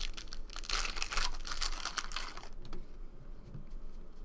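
Crinkling and rustling of a baseball card pack and its cards being handled and flipped through. The sound is dense for the first two and a half seconds, then thins out to a few light clicks.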